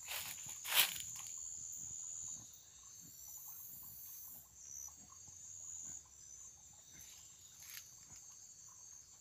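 Night insects shrilling steadily at a high pitch, with a short sharp noise about a second in.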